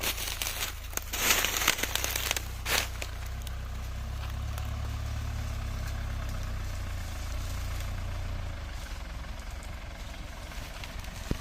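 Engine of an off-road 4x4 running steadily at low revs, slightly stronger for a few seconds in the middle. Several short bursts of rough noise come over it in the first three seconds.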